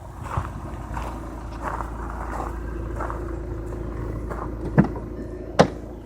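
A 2010 VW Jetta TDI diesel running with a steady low rumble and a faint steady hum over it. Soft knocks repeat about every two-thirds of a second, and two sharp clicks come less than a second apart near the end.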